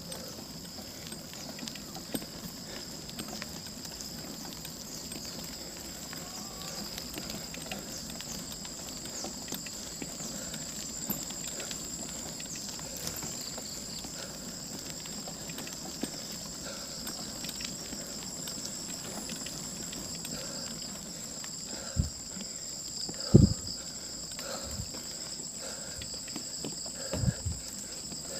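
Steady high-pitched insect drone, held on two tones, with scattered light clicks. Three low thumps come near the end, the middle one loudest.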